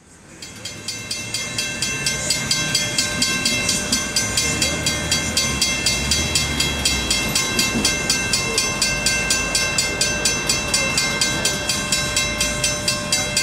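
Railroad grade-crossing bell ringing steadily at about four strikes a second, fading in at the start. A low rumble swells briefly around the middle.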